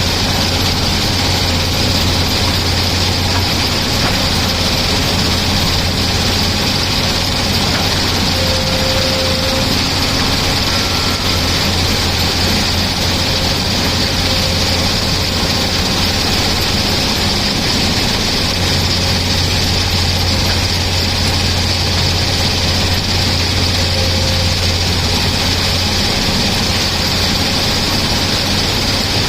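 Tata Hitachi excavator's diesel engine running steadily, with a strong low hum and a hiss above it.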